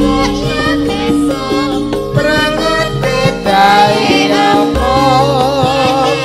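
Live langgam campursari music: a band with keyboard plays while a singer carries a wavering melody that comes through more strongly about halfway through.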